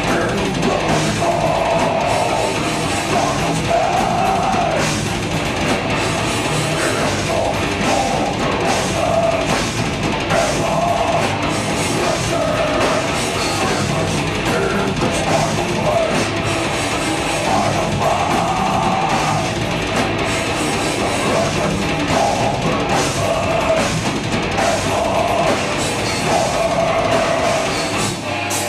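Technical death metal band playing live: loud distorted electric guitar riffs over a drum kit.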